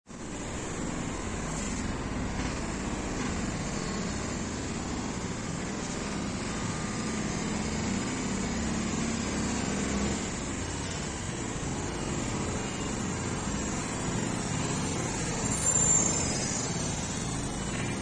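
Steady, continuous hum of road traffic, with a brief high-pitched sound near the end.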